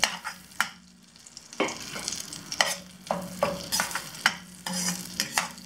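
A spoon or spatula stirring in a kadai of melted butter and a little oil, giving about seven irregular scrapes and knocks against the pan over a steady sizzle of frying. A steady low hum runs underneath.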